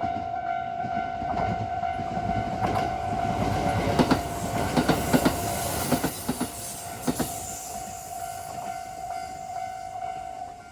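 A train running over a level crossing, with a cluster of sharp wheel clacks over the rail joints about four to seven seconds in. Over it a level-crossing warning bell rings as a steady high tone.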